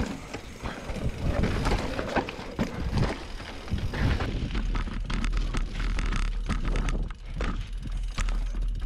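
Mountain bike riding over rough dirt trail: tyres crunching and the bike clattering with frequent sharp knocks and rattles, with wind rumbling on the action-camera microphone.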